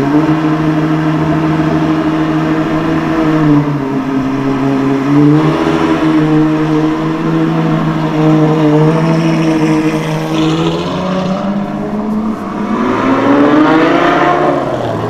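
Supercar engine running at a steady low speed, then revving up sharply about twelve seconds in and dropping back just before the end.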